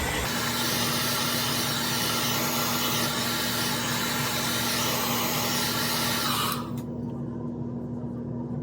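Hair dryer blowing steadily to dry the glue under a wig's lace. The rushing air drops away about six and a half seconds in, leaving a lower hum.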